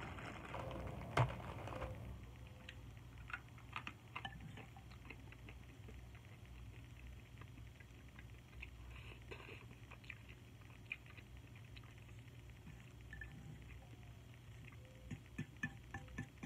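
Faint eating sounds: instant noodles being chewed, with scattered light clicks and taps from the plastic fork, a sharper one about a second in and a run of them near the end.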